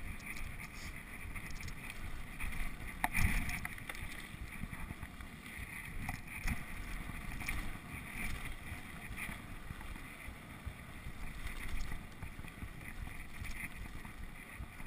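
Mountain bike ridden fast down a dirt trail, picked up by a GoPro on the ride: a steady rumble of tyres on dirt and rattling of the bike, with wind on the microphone. A sharp knock comes about three seconds in, with a few lighter clicks later.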